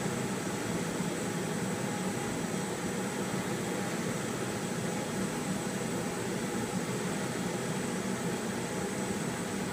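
Steady rushing noise of a workshop fume extractor fan running together with a gas brazing torch flame, which is heating a ladle of pewter on a brazing hearth to melt it.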